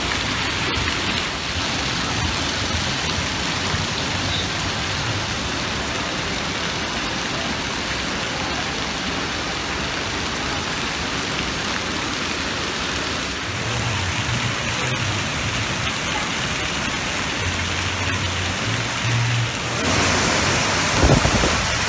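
Steady hiss of water spraying and splashing from a water-park splash play structure. Near the end it swells into a louder rush as a big load of water pours down from the top of the structure.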